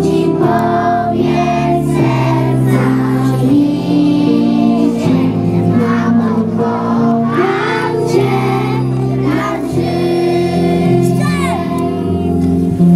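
A children's song with a musical backing track, sung by a group of young children's voices.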